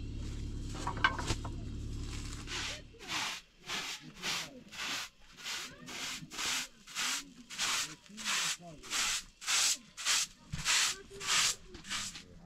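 A short straw hand broom sweeping a plastic tarp in quick, even strokes, about two a second, starting about two and a half seconds in, after a steady low rumble cuts off.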